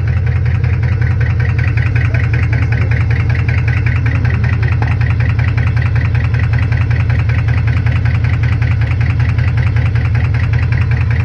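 Chevrolet Camaro SS 6.2-litre V8 idling steadily with a fast, regular ticking or knocking over the drone. The owner can't tell whether the noise is a rod knock or a lifter tick.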